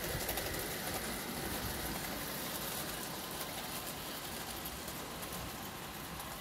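O gauge model train running along garden track: a steady mechanical running noise that slowly gets quieter as it moves away.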